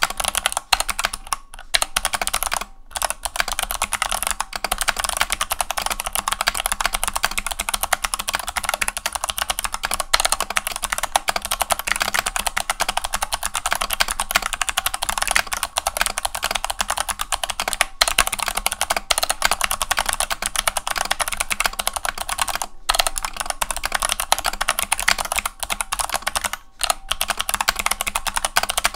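Fast, continuous typing on a GMMK mechanical keyboard with clicky Kailh BOX Navy switches and Vortex PBT keycaps, set on a towel. It is a dense run of sharp key clicks, with only a few brief pauses.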